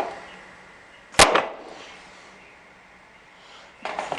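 A sharp knock of hand tools or lock hardware against a hard surface about a second in, with a fainter knock at the start and another near the end.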